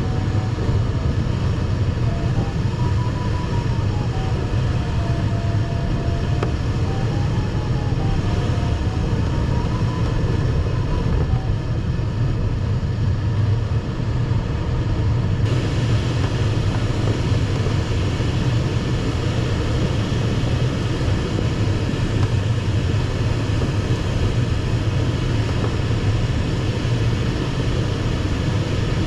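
Steady airflow noise in the cockpit of an ASW 15 glider in flight, with the variometer's beeping tone rising and falling in pitch over the first ten seconds or so. The hiss of the air turns brighter about halfway through.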